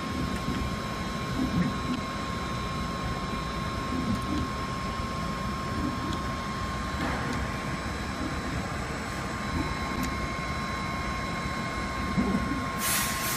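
Steady machine noise with a constant whine, from a robotic soldering station at work. A hiss starts near the end.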